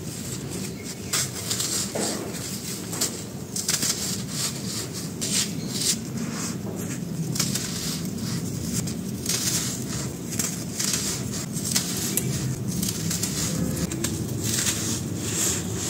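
Dry, crumbly sand-cement chunks crushed and rubbed in the hands, with powder and grit pouring from a fist onto a dusty pile: a continuous run of crisp crunches and crackles over a gritty hiss.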